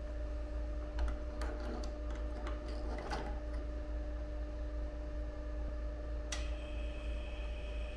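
Small clicks and knocks as a mortar prism is handled into the specimen holder of a lever-arm flexural testing machine, over a steady electrical hum. About six seconds in, a sharp click is followed by a steady high whine that keeps going: the machine switched on.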